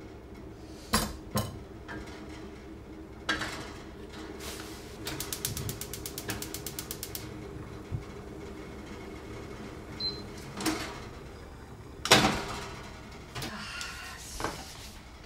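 Cookware handling at a gas hob: two sharp taps of a ladle against a frying pan, a metal lid set down on the pan, then a quick, even run of ticking for about two seconds. Later come two louder knocks, the second the loudest sound, over a steady low hum.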